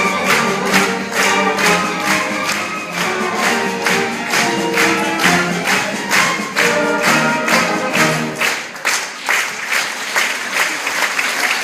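Music: held notes from singing voices over a sharp, steady beat of about three strokes a second. About eight seconds in, the low held notes stop and the beat carries on alone.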